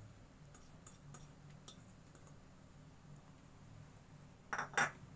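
Quiet handling of kitchen crockery: a few faint ticks, then two short clinks about four and a half seconds in, over a low steady hum.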